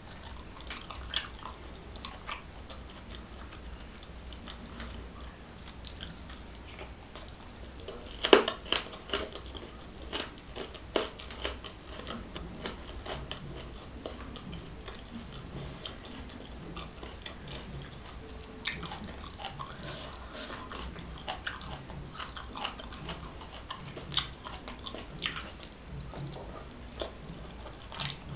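Close-up chewing and wet mouth sounds of someone eating rice and egg curry, with many short sharp lip smacks and clicks. The loudest comes about eight seconds in.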